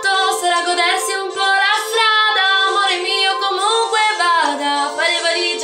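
Italian pop song playing: a solo voice sings a flowing melody over soft accompaniment.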